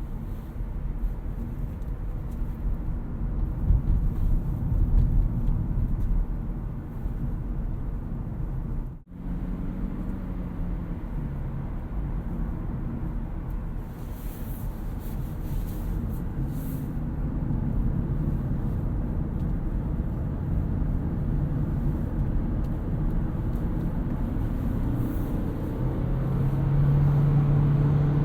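2018 Toyota Auris Touring Sports 1.8 Hybrid on the move, heard from inside the car: a steady tyre and road rumble. The sound cuts out for a moment about nine seconds in. Near the end a steady low hum joins in and the sound gets a little louder.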